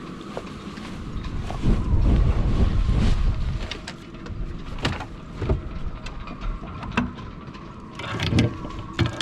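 Gusty wind buffeting the microphone and whistling through a small sailboat's rigging in a thin steady tone, with a strong gust about two seconds in. Scattered sharp clicks and taps are heard throughout.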